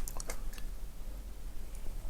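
Close-miked eating sounds: soft chewing with a few small wet mouth clicks, mostly in the first half second, then quieter.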